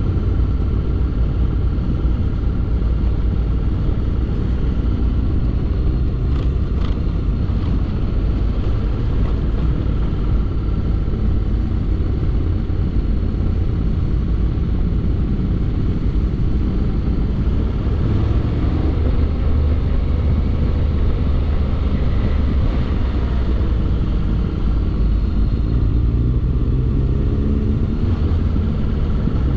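Motorcycle riding on the road: a steady rumble of wind and road noise over the bike's engine. Faint changes in the engine note come and go in the second half.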